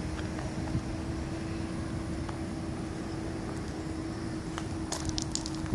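Steady drone of a nearby motor vehicle's engine, a low rumble with a held hum, with a few light clicks near the end.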